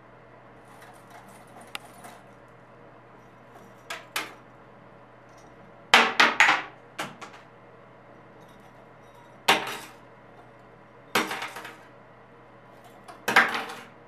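Hard objects clinking and knocking together, single strikes and short clusters every couple of seconds, the loudest cluster about six seconds in.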